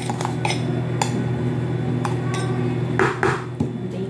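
A metal spoon tapping and scraping against a small baking-powder box and a plastic mixing bowl as baking powder is measured into flour: a few light clinks and knocks, the loudest about three seconds in, over a steady low hum.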